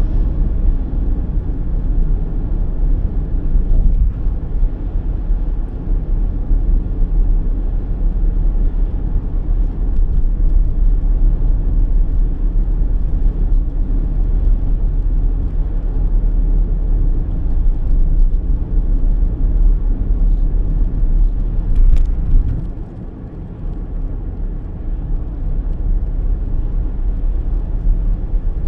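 Road and engine noise inside a moving car's cabin: a steady low rumble of tyres and engine. Near the end the rumble drops away for a few seconds and then slowly builds again, just after a single sharp click.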